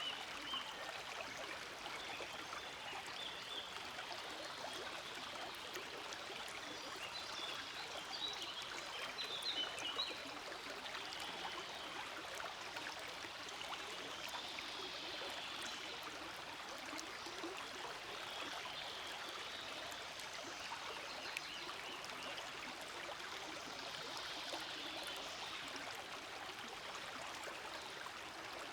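Forest stream flowing steadily over rocks, an even rushing and babbling of water, with a few brief brighter splashes about eight to ten seconds in.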